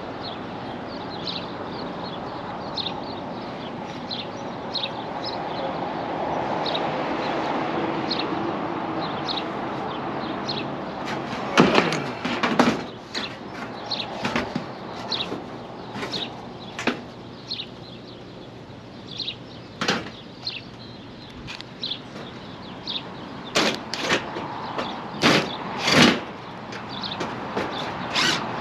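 Wind noise, then a series of irregular knocks and thumps from work on a roof, with the loudest strikes about midway and several more near the end.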